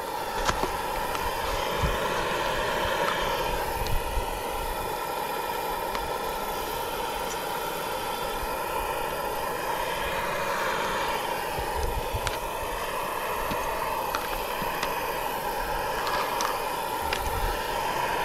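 Portable gas camp stove burner hissing steadily under a frying pan of heating olive oil, with a few light clicks and knocks from plastic lids and containers being handled.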